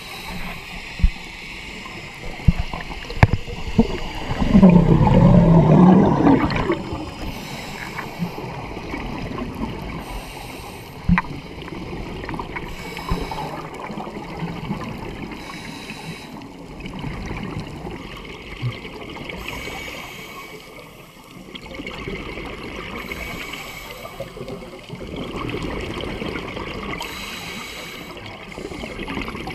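Scuba breathing heard underwater: a diver's exhaled bubbles gurgling, with one loud burst of bubbles about four seconds in lasting some two seconds. A few sharp knocks, and a short hiss every few seconds, over a steady watery background.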